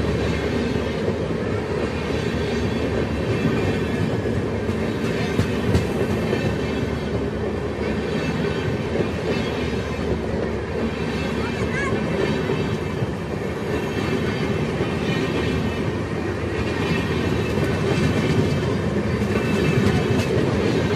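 Indian Railways passenger coaches passing close by: a steady rumble of steel wheels on the rails, with the clickety-clack of wheels over rail joints.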